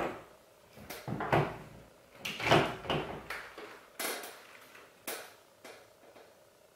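Handling noise: a series of short rustling and scraping swells with a couple of knocks, about seven in the first five and a half seconds, growing fainter.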